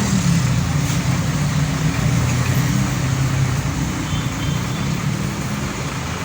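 Bus diesel engine running with a steady low rumble over traffic noise, easing off slightly in the second half.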